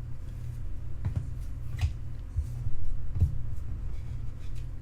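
A few faint taps and clicks of trading cards being handled, three of them about a second apart, over a steady low electrical hum.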